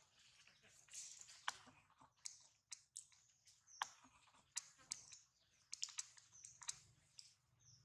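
Faint, irregular crackling and sharp clicks of dry fallen leaves under a monkey's hands and feet as it walks across leaf litter.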